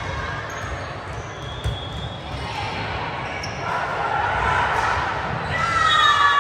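Indoor volleyball being played in a gym: the ball being hit and bouncing, with a crowd of players' and spectators' voices under it. Shouts rise near the end.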